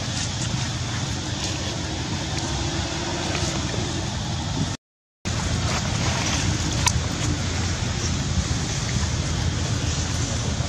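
Steady low outdoor background rumble with no distinct event in it, cutting out to complete silence for about half a second near the middle.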